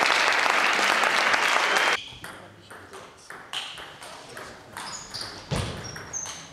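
A loud burst of clapping and cheering that cuts off abruptly about two seconds in, then a table tennis rally: the ball clicking sharply off bats and table at an irregular pace, with a low thud of a stamping foot near the end.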